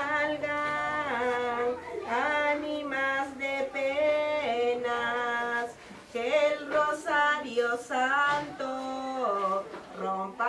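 A woman singing a slow melody, holding long notes that glide between pitches, with a brief break about six seconds in.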